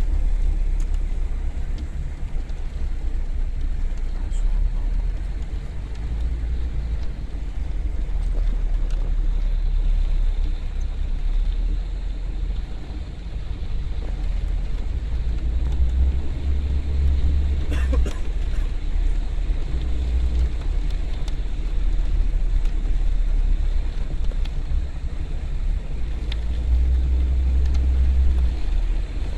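Steady low rumble inside a moving car's cabin in a heavy rain and wind storm: road and wind noise, with a short cluster of sharp ticks a little past the middle.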